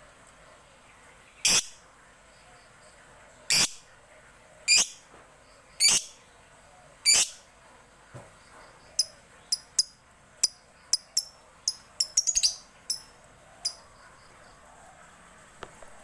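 Lovebird giving loud, shrill single calls, five of them about a second apart, then a quicker run of short sharp chirps from about nine seconds in that bunch into a rapid flurry near the twelfth second.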